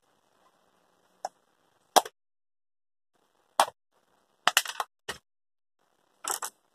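Sharp plastic clicks and knocks as a Philips steam iron's housing is handled and pried apart. There are several separate strikes, with a quick cluster about four and a half seconds in.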